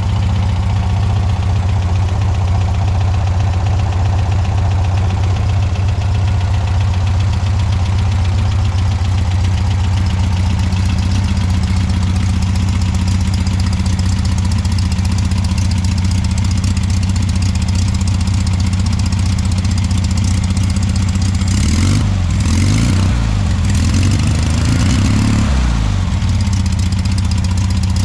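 Air-cooled Volkswagen Beetle flat-four engine idling steadily while warming up after a carburetor clean-out, new points and a valve adjustment. From about 22 seconds in it is revved a few times, the pitch rising and falling, before it settles.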